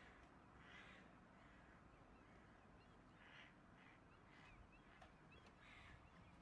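Faint, harsh crow caws repeated every half second to a second: alarm and distress calls of crows while a hawk has one pinned on the ground.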